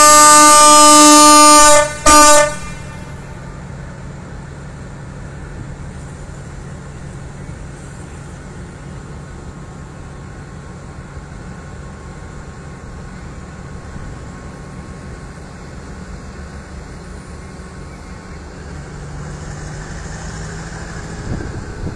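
Loud blast on a diesel-electric locomotive's air horn, ending about two seconds in, followed by a short second toot. Then the locomotive's diesel engine drones steadily as the train approaches, growing a little louder near the end.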